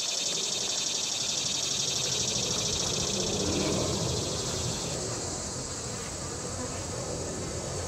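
Honey bees buzzing in flight around a sugar-syrup feeder, a low hum that swells about three seconds in and keeps rising and falling. Under it, a steady high-pitched hiss that drops away about five seconds in.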